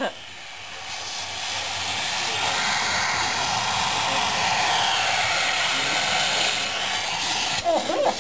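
Vacuum cleaner motor starting up, its rushing whir building over about two seconds and then running steadily.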